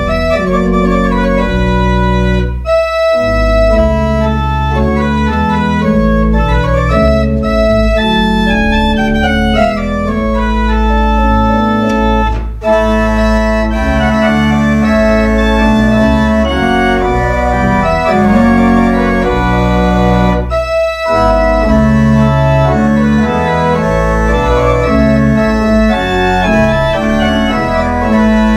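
Church pipe organ playing held chords over a deep sustained pedal bass. The phrases break off briefly about three seconds in, near the middle and about two-thirds of the way through.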